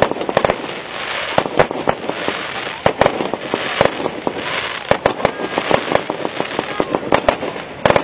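Aerial fireworks bursting overhead: a rapid, irregular string of sharp bangs and crackles, several a second.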